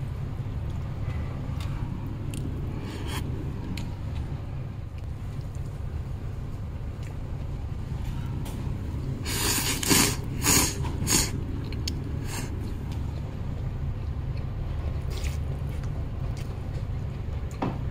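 Soba noodles slurped in a few short, noisy sucks about ten seconds in, over a steady low hum of background ambience with a few faint clicks.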